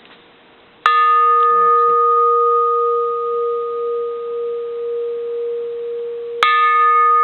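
Japanese bronze Buddhist temple bell struck twice with a wooden striker, about five and a half seconds apart. Each strike rings on with a deep hum and a clear higher overtone, the ring wavering slowly in loudness as it sustains.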